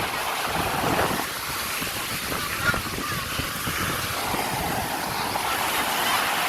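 Steady rushing water, with wind buffeting the microphone.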